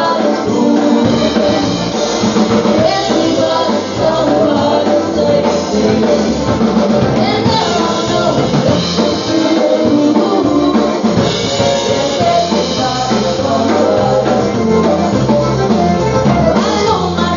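Live polka band playing dance music, with a steady drum-kit beat and bass line.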